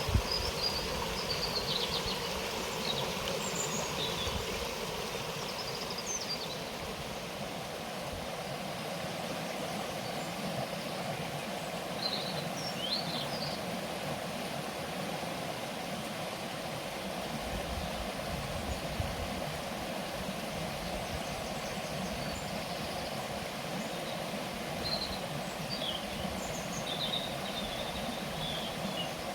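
Outdoor ambience: a steady rushing noise with a few birds chirping now and then, in short high calls.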